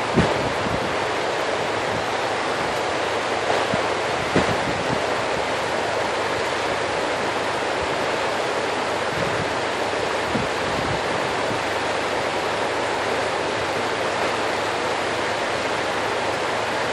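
Steady rushing noise of wind on the microphone and lake water lapping at the shore, with a few brief knocks in the first few seconds.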